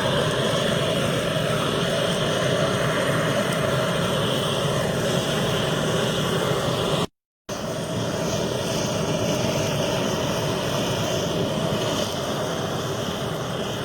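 Gas blowtorch burning with a steady rushing noise, as used to singe the skin of cured pork.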